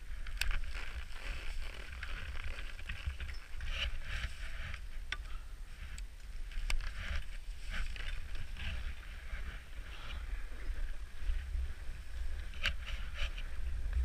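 Skis scraping and crunching over chopped-up snow, with several sharp clicks, over a steady low rumble of wind on the camera microphone.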